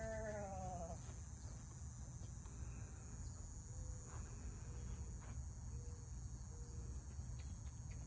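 Cicadas droning steadily in a high, continuous buzz. Right at the start comes a short drawn-out call that falls in pitch.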